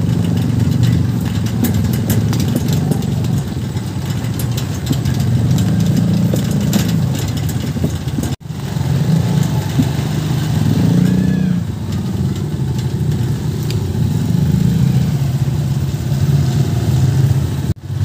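Motorcycle engine running while riding, its pitch rising and falling with the throttle. The sound cuts out sharply twice: about eight seconds in and near the end.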